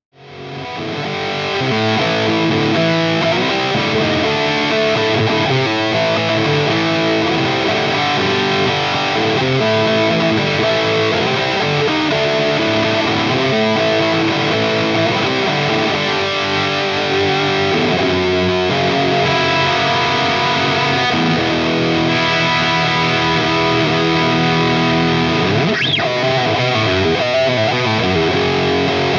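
Distorted lead electric guitar played through a Laney LC15R all-tube amp, the overdrive coming from the amp itself pushed by a TSE808 boost, heard through Mesa Boogie cabinet impulses with delay on the notes. Near the end one note swoops quickly up and back down in pitch.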